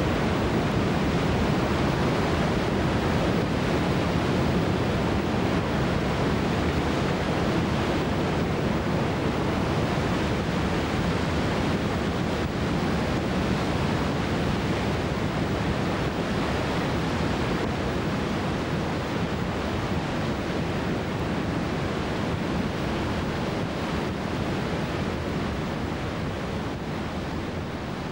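Steady rushing roar of whitewater rapids on a large river, with high standing waves breaking, easing slightly near the end.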